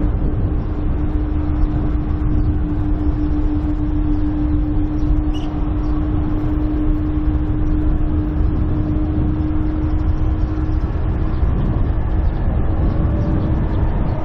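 Boeing 777-281 airliner's jet engines running with a loud, steady rumble and a steady hum, continuous throughout.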